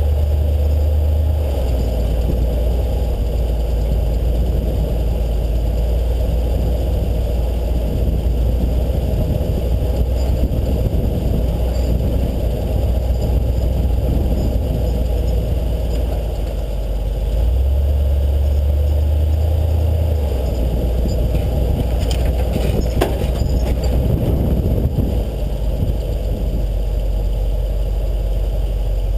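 4x4's engine running steadily, a deep low rumble with road and drivetrain noise over it, and a few sharp knocks or rattles about two-thirds of the way through.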